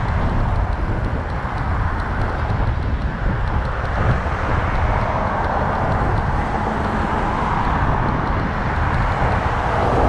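Steady road and traffic noise heard from a moving bicycle, with a low churning rumble of wind on the microphone.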